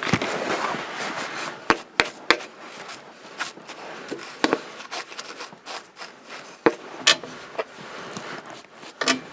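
Light handling noises: scattered clicks and knocks, several of them sharp, with soft rubbing and scraping between.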